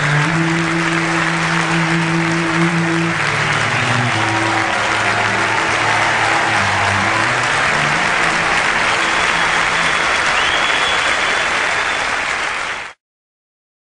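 Audience applauding over music with steady low notes; both cut off abruptly near the end.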